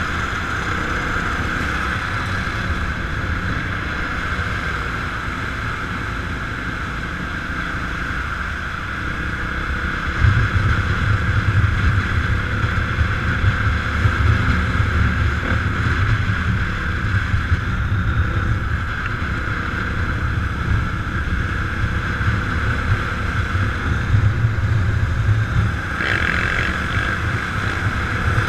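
A vehicle engine running steadily on the move, with wind noise on the microphone. About ten seconds in, a deeper engine rumble grows louder and stays.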